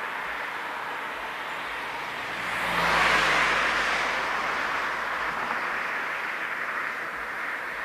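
KiHa 40 diesel railcar engine running, rising about two and a half seconds in as the railcar pulls away from the platform, loudest around three seconds in, then easing as it moves off.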